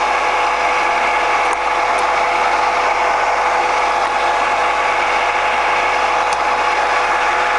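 HMT RM61 radial arm drill's geared head running steadily with the spindle at 112 rpm and the power feed engaged, giving a steady gear whine with a few light clicks.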